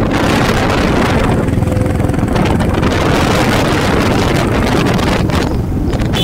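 Royal Enfield Bullet motorcycle engine running steadily while being ridden at road speed, mixed with heavy wind buffeting on the microphone.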